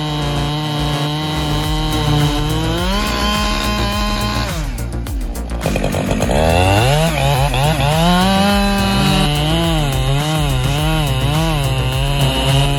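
Chainsaw engine running at high revs; its pitch falls away sharply about four and a half seconds in, climbs back up a second later, then wavers up and down.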